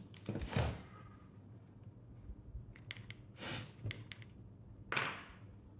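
Quiet handling while a smartphone is being closed back up: a few faint small clicks, and three short breathy hissing bursts.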